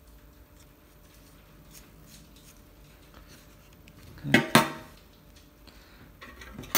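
Faint room tone, then two sharp knocks on a hard tabletop about a quarter-second apart, a little past four seconds in, as a metal tube of polish is set down. A single sharp clink at the very end as a silver spoon is picked up.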